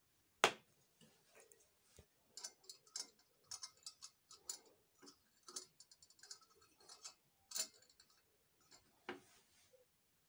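Faint, irregular clicks and taps from gloved hands handling a thin metal rod on a ceramic plate and a plastic bottle, with one sharper click about half a second in.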